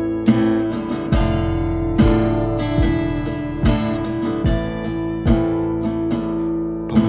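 Acoustic guitar strummed in a steady rhythm, with a strong strum a little more than once a second and the chords ringing between strokes.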